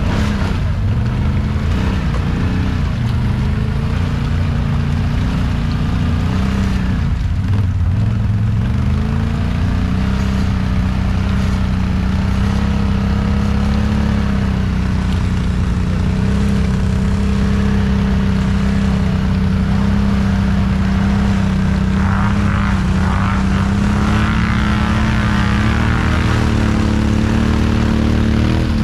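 Quad ATV engine running hard under load in deep mud, its revs holding fairly steady with slight rises and falls as the spinning wheels churn through the mud hole.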